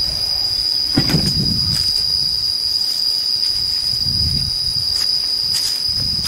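Insects trilling in one steady, high-pitched tone, with a few soft low thuds of footsteps and camera handling.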